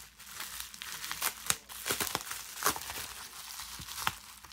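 Plastic bubble wrap crinkling and crackling in irregular bursts as hands handle it and unwrap ink bottles from it.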